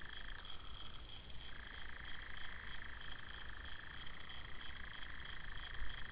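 A long, fast, buzzing trill from a night-calling animal. It breaks off about half a second in, starts again about a second later and runs on for several seconds, over a steady, higher, pulsing chorus.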